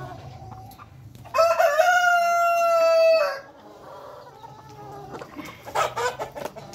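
Black Australorp rooster crowing once, a single long call of about two seconds starting just over a second in, over the clucking of a crowded flock of hens.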